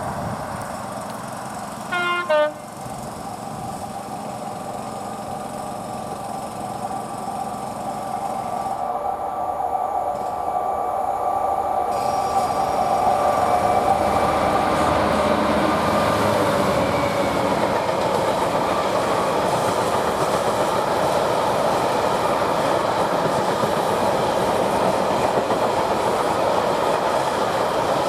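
A diesel train gives a short horn blast about two seconds in, then approaches and passes, its engine note rising in level and dropping slightly in pitch as it goes by. After that the coaches or wagons run past with a steady loud rumble and wheel clatter.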